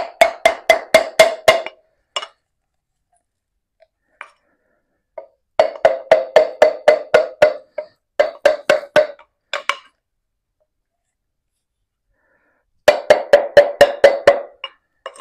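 Quick runs of sharp metallic taps, about six a second, each with a short ring, from the piston being tapped along inside a new tractor cylinder sleeve. They come in three bursts: one at the start, a longer one mid-way and a short one near the end.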